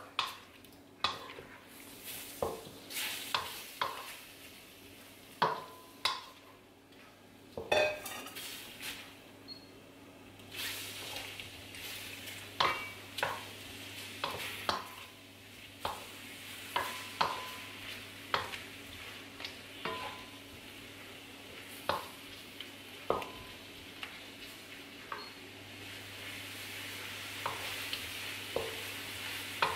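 Raw prawns sizzling in a hot pan while a wooden spatula stirs them, with frequent sharp taps and scrapes of the spatula against the pan. The sizzle grows louder near the end as the prawns are pre-cooked to drive off their own water.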